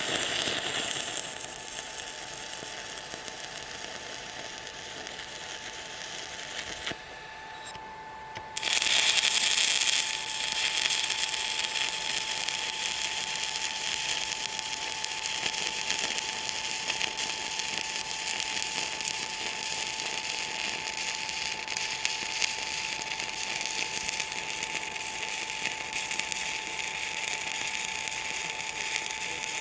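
Stick-welding arc from a 3/32" 7018 electrode at about 95 amps, crackling and hissing steadily as it lays a weld on steel. The arc breaks off about seven seconds in, is struck again about a second and a half later, and then runs on louder.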